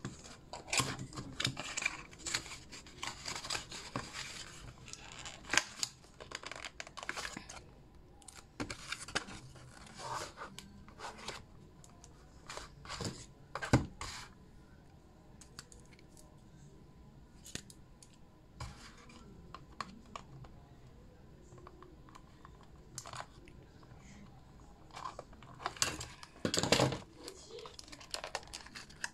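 Scissors snipping and tearing at a Rubik's cube box's packaging, with rustling and crinkling of the wrapping in an irregular run of snips and scrapes, densest in the first several seconds. A few sharper knocks stand out, the loudest about halfway through and another near the end.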